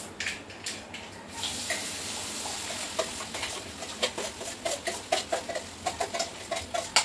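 Chopped vegetables tipped from a steel plate into hot oil in a wok, setting off a steady sizzle about a second and a half in. A metal spoon scrapes and taps against the steel plate, with quick repeated taps in the second half.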